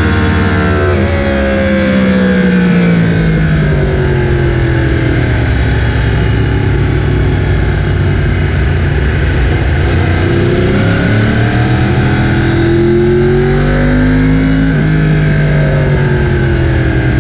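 Yamaha R1 sportbike's inline-four engine at speed on a racetrack, heard onboard under heavy wind rush. The revs fall over the first few seconds as it slows for a corner, hold lower through the middle, then climb again under acceleration, with a short break for an upshift before rising once more.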